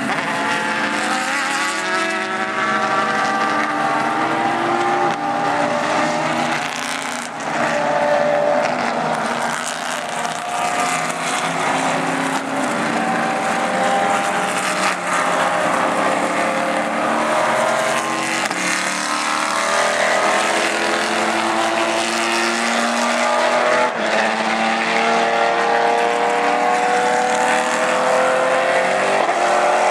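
Several GT race car engines running at once, revving with pitches that rise and fall as the cars accelerate and pass.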